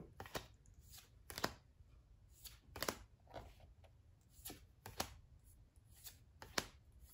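Dragon Ball Super trading cards being handled and flipped through by hand: a faint string of short, separate card flicks and slides, about one or two a second.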